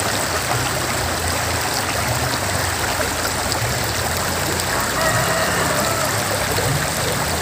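Shallow rocky river running steadily over stones: a continuous rushing of water.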